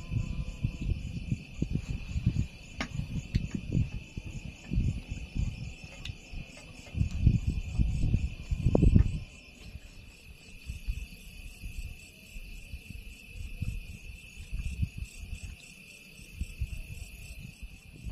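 Crickets chirping steadily in a continuous high trill. Irregular low rumbles of wind buffeting the microphone run underneath and are loudest about eight to nine seconds in.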